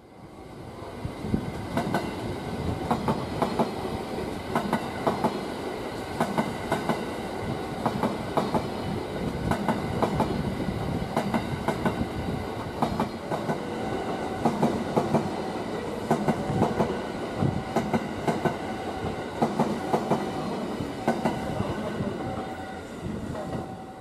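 JR West 323 series electric train passing close by, its wheels clicking over the rail joints in a steady clickety-clack over a running rumble.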